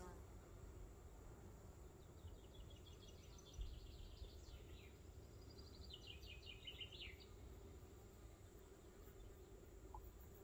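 Faint outdoor ambience in which a songbird sings two phrases of quick high notes falling in pitch, about two and six seconds in, over a low rumble and a steady thin high tone. A soft low bump comes about three and a half seconds in.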